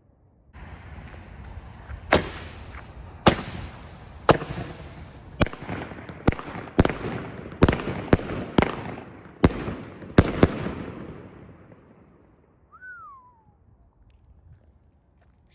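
Smoking Alien 'Black Dog' 200-gram firework cake firing. About a dozen sharp bangs of shots and breaks come over roughly eight seconds, with a constant fizzing crackle from the white strobe between them, and the sound dies away by about twelve seconds in.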